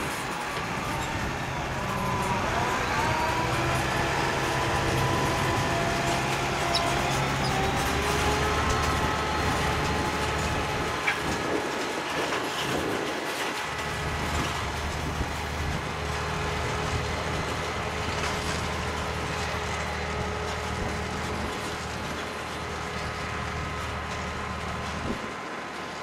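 John Deere 7280R tractor's diesel engine working steadily under load, pulling an eight-furrow Kverneland reversible plough through stubble. Several steady whining tones sit over the engine drone, which dips briefly about halfway through.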